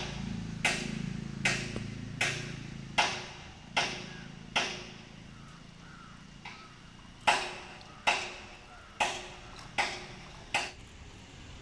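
Steady hammering: sharp blows about one every 0.8 seconds, each ringing briefly, with a pause of nearly three seconds midway.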